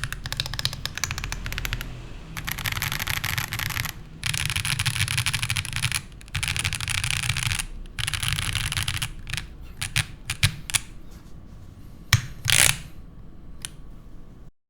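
Typing on a QK60 gasket-mount mechanical keyboard with stock Viola Tricolor L switches, an aluminium plate and GMK keycaps. It starts with fast bursts of keystrokes separated by short pauses, then slows to scattered single presses with a few louder, heavier strikes near the end.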